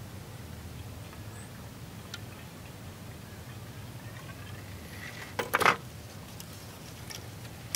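Water poured from a canteen trickling faintly into a rifle-musket barrel, then a brief clatter about five and a half seconds in as the canteen is set down on a wooden slat table.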